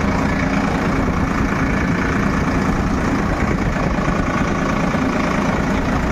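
Tractor engine running at a steady speed, heard close up from the seat.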